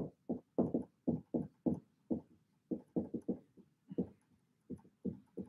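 Dry-erase marker writing on a whiteboard: a quick, uneven run of short rubbing strokes, several a second.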